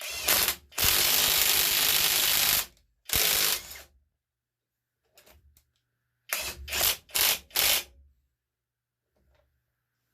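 Cordless impact wrench hammering in trigger bursts on a 1/2-inch bolt: a short burst, a long one of about two seconds, another short one, then a string of four quick blips a few seconds later.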